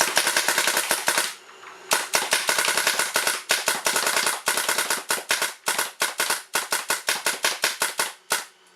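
Azodin Blitz electronic paintball marker firing reballs in rapid ramping (Millennium mode, capped around 12.5 shots a second). A fast string of shots lasts just over a second and is followed by a short pause. A long string then follows that breaks into shorter bursts and single shots near the end.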